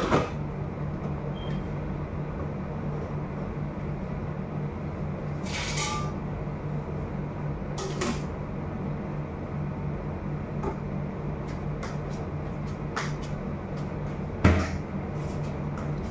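Large stainless steel cooking pots knocking on the metal grate of a gas stove, with one sharp clank as a pot is set down at the start and a louder thud near the end, and a few lighter clicks between, over a steady low hum.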